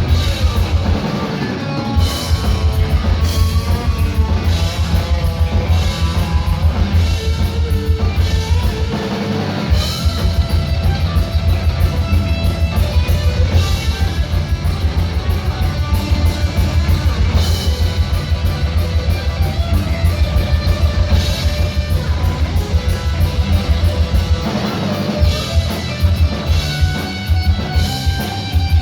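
Heavy metal band playing live without vocals: distorted electric guitar and drum kit, driven by a rapid, steady low drum beat that drops out briefly twice.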